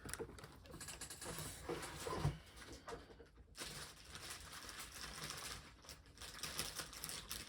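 Faint rustling and light clicks of packaging being handled as the figure's parts are taken out of the box.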